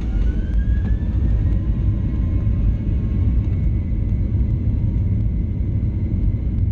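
Boeing 737-800's CFM56 turbofan engines spooling up to takeoff thrust, heard from a cabin seat by the wing: a rising fan whine that levels off into a steady high whine about a second and a half in, over a heavy rumble.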